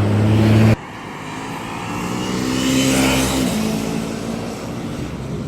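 A steady engine hum cuts off abruptly under a second in. Then a car passes by: it grows louder to a peak about three seconds in and fades as its pitch drops.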